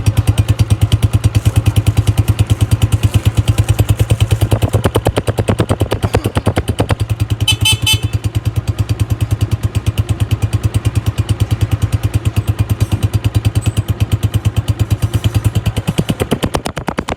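Honda CG125's single-cylinder four-stroke engine running with an even, pulsing exhaust beat; the note brightens briefly a few seconds in. A short high chirp sounds about eight seconds in.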